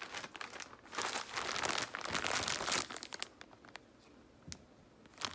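Clear plastic packaging crinkling as it is handled and held up. Loudest for the first three seconds, then it dies down to a few light ticks and a soft thump.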